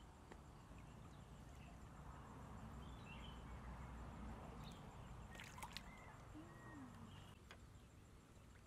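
Faint sloshing of shallow muddy water as hands grope inside a bamboo fish trap, with a short sharp knock about five and a half seconds in.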